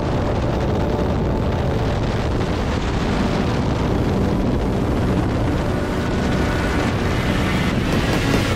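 Small motorboat running underway across choppy water: a steady engine drone mixed with wind rushing over the microphone and the hull's water noise.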